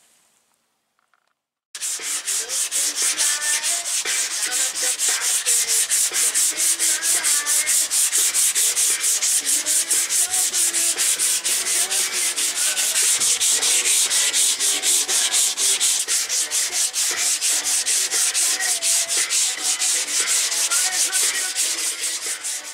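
Hand sanding block with sandpaper scraped rapidly back and forth over a primed steel car roof, block-sanding the primer and filler flat. The sanding starts about two seconds in and keeps an even stroke rhythm.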